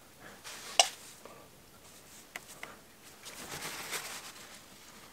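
Small plumbing fittings being handled: a sharp click a little under a second in, a couple of lighter clicks, then a rag rubbing over PVC pipe and fittings for about a second.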